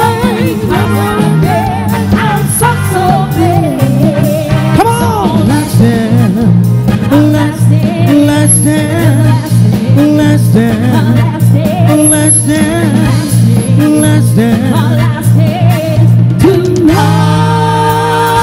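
Live band playing upbeat pop music with a singer's voice over it, ending on a long held note near the end.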